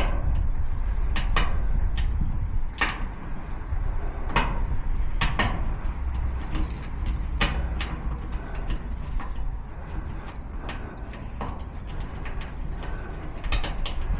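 Lock picks working inside a garage door lock cylinder: sharp, irregular metallic clicks, about one a second, over a steady low rumble.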